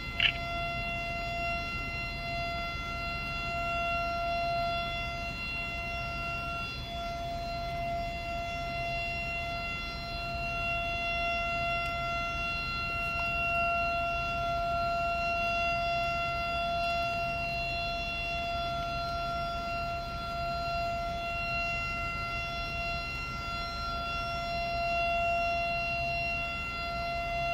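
Quarry warning siren holding one steady, unchanging tone, the alert sounded before a blast is fired.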